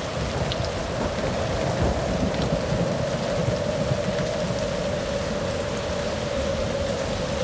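Steady rain falling, with a low rumble underneath and a steady droning tone that sinks slowly in pitch.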